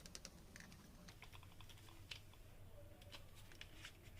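Faint, irregular small plastic clicks and taps from a Moza Mini S folding smartphone gimbal being handled, as its phone clamp is worked to make it rotate.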